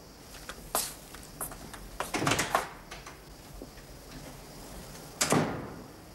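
A room door being handled: a few latch clicks and rattles, then a loud thud about five seconds in as it is shut.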